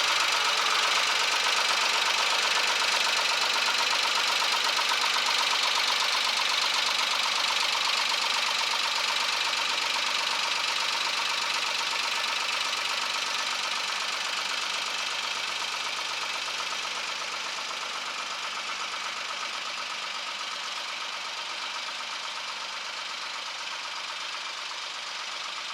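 Carraro 6000 tractor's air-cooled diesel engine running steadily with a fast knocking rhythm, gradually fading out.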